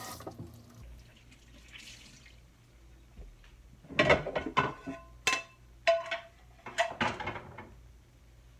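Pots, pans and kitchen utensils clinking and clattering at the stove: a quick run of sharp knocks with short ringing tones from about four seconds in to past seven seconds, after a quieter start.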